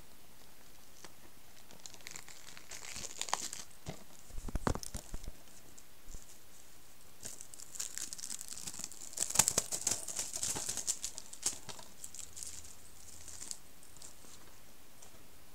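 Plastic packaging crinkling as a DVD case is handled, in two spells of crackling about two to five seconds in and seven to twelve seconds in, with a dull bump about four and a half seconds in.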